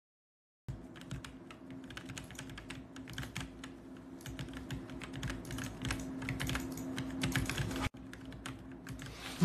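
Typing on a computer keyboard: a quick, irregular run of key clicks that starts after a brief silence, with a faint low steady hum underneath.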